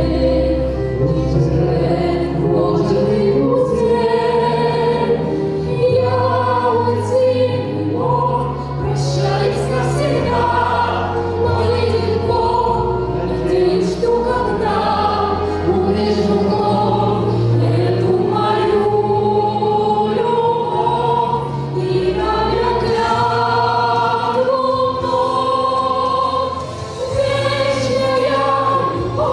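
Music: a choir singing held notes over an instrumental accompaniment with long, slowly changing bass notes.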